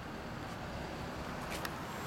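Kawasaki Ninja 250R's parallel-twin engine idling through an r's gear Wyvern aftermarket muffler, a low, steady rumble, with two faint clicks about one and a half seconds in.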